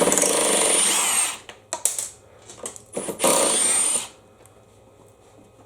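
Power drill-driver spinning out two bolts on the mower's cover: two runs of about a second each, the second starting about three seconds in, with a high whine that dips as each run ends. A few small clicks between them.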